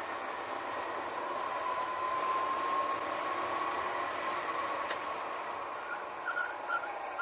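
Go-kart engine running hard, its whine rising slowly in pitch as the kart picks up speed, under a steady rush of wind noise. There is a sharp click about five seconds in, and a few short squeals near the end as the kart turns into a corner.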